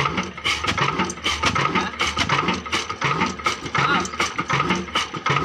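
Ruston Hornsby stationary diesel engine running at a slow, steady beat of about two pulses a second, with mechanical clatter over it.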